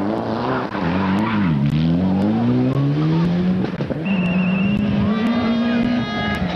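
Mitsubishi Lancer Evolution rally car accelerating hard past the corner with one upshift about a second and a half in, its tyres sliding on loose gravel. From about four seconds in another rally car's engine holds a steadier note as it approaches.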